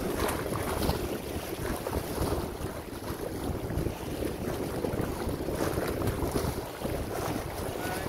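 Wind buffeting the microphone over choppy open water, with small waves splashing and lapping. There is no engine sound.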